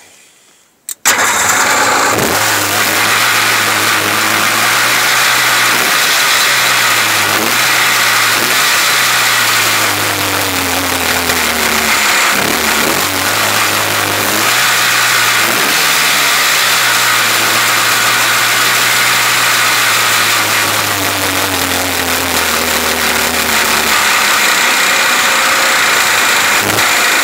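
Sea-Doo 3D's two-cylinder Rotax engine catches about a second in and runs on, its revs rising and falling several times, after being cranked to fill the empty carburetors with fuel.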